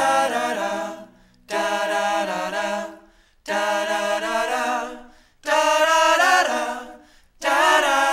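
Background music: short phrases of unaccompanied singing, about two seconds apart, with brief silences between them.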